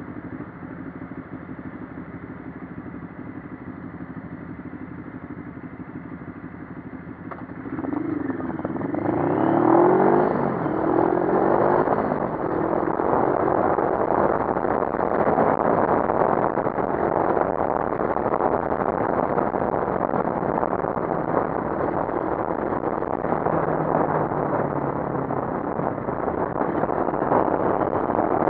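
CFMoto 400NK's 400cc parallel-twin engine idling at a standstill, then accelerating hard about seven seconds in, its pitch rising in several quick sweeps as it shifts up through the gears. It then runs steadily at cruising speed under a steady rush of wind noise.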